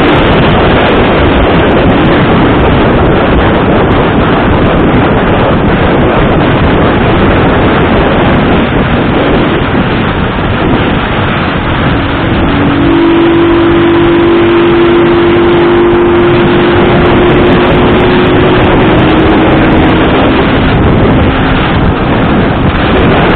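Loud, steady rush of wind and a running vehicle heard while riding. A faint steady hum joins in about halfway through and fades a few seconds later.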